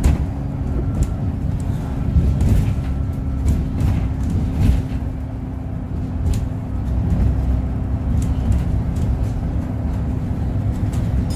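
Interior of an Alexander Dennis Enviro400 double-decker diesel bus on the move: the engine's steady low drone with a held hum, and short rattles from the body every second or so.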